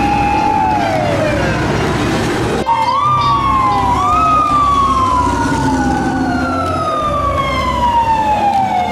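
Fire truck siren wailing: a held tone drops in pitch, then after a break about two and a half seconds in it sweeps up in quick rises and falls slowly over several seconds.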